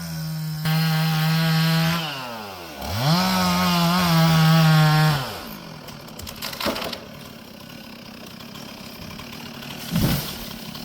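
Two-stroke chainsaw held at high revs, dropping briefly about two seconds in, revving back up, then letting off and falling away about five seconds in. Quieter after that, with a sharp knock and, near the end, a dull thump.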